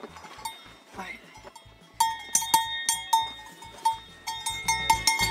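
Bell on a young calf's collar clanking as the calf moves its head, a short ringing note each time. The clanks are sparse at first, then come quickly and steadily, three to four a second, from about two seconds in.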